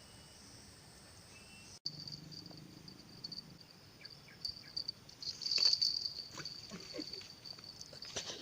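Insects droning steadily in a high-pitched chorus, swelling louder a few seconds in, with scattered small clicks and knocks.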